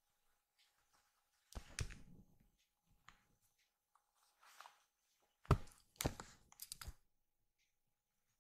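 Close-up scuffing and crackling rustles with soft thumps as a kitten paws at a hand and the camera on a fabric blanket: one burst about a second and a half in, a softer one around four and a half seconds, and a louder cluster from about five and a half to seven seconds in.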